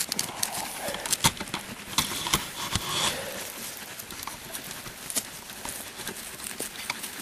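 Boots crunching and shuffling on packed snow: irregular crisp crunches and knocks, busiest in the first three seconds, then sparser.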